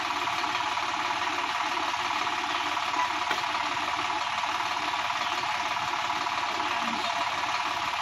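Sonalika DI-50 RX tractor's diesel engine idling steadily, with a fine, even pulsing.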